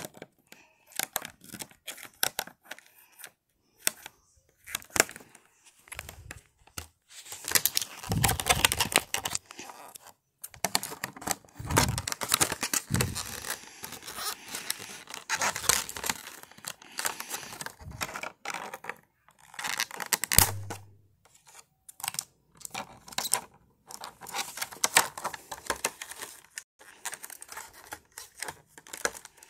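Plastic and cardboard toy packaging being pulled, torn and crinkled by hand in irregular stop-start bursts, with a brief low thump about two thirds of the way through.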